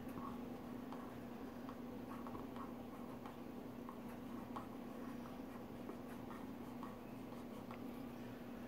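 Faint scratching of a gold paint marker's tip drawing on bare crepe myrtle wood, the marker a little dry, over a steady low hum.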